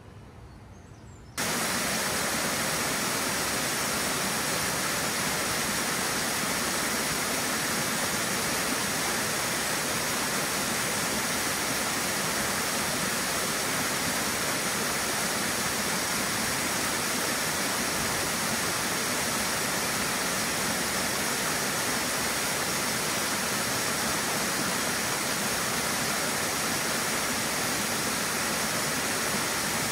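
Small waterfall cascading over a rock face: a steady rush of falling water that starts abruptly about a second in.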